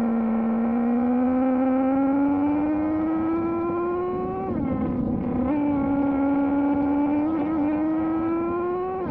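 Traxxas Jato 3.3's small two-stroke nitro engine screaming at high revs, its pitch climbing steadily under acceleration. It dips as the throttle lifts a little past halfway, then climbs again.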